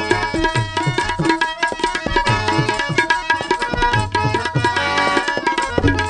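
Harmonium playing held reedy notes and melody over a fast tabla accompaniment, the bass drum's low strokes sliding in pitch.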